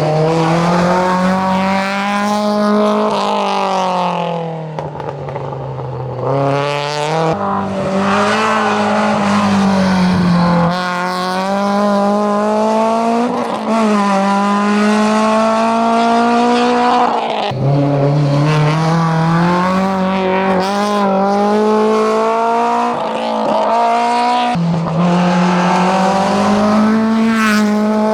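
A hillclimb race car's engine driven hard at high revs. Its note climbs and falls, with several abrupt changes of pitch at gear changes.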